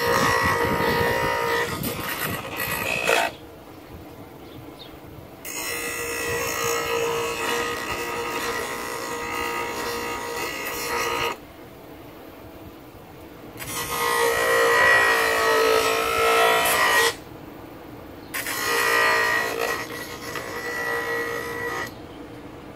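Bench grinder grinding a piece of oak into shape. It comes in four passes of several seconds each, a whining grind while the wood is pressed to the wheel, dropping to a quieter running hum in the short gaps between passes.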